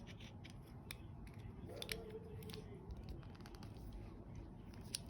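Glock pistol parts being handled during reassembly: small scattered metal-and-polymer clicks and scrapes as the barrel and guide rod are fitted into the slide.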